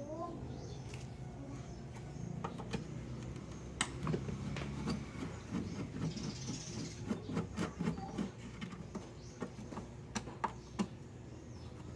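Irregular clicks and light taps of a screwdriver working the screws on the sheet-metal top cover of a window-type air conditioner.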